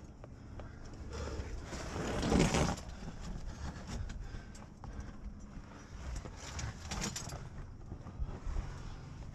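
A climber's body and gear scraping and rubbing against rock while squeezing up a chimney. The loudest scrape comes about two seconds in, and there are a few sharp clicks of gear around seven seconds.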